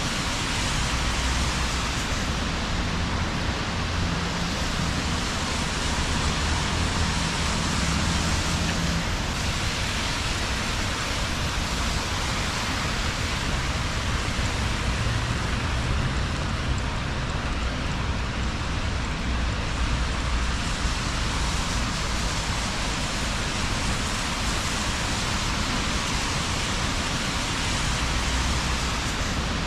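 Steady rain falling on a wet city street, a constant even hiss, with a low rumble of passing traffic underneath that swells and fades a few times.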